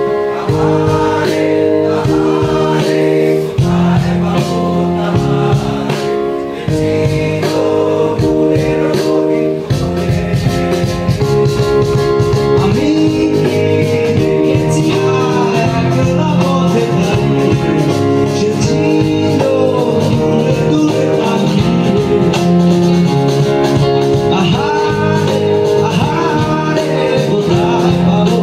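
Live band playing a song: electronic keyboard and guitar, with a man singing.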